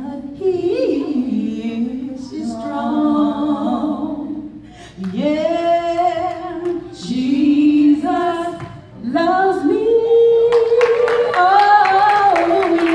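A woman singing unaccompanied, a wordless gospel-style run of long, held notes that slide between pitches. Near the end, sharp rhythmic beats join the singing.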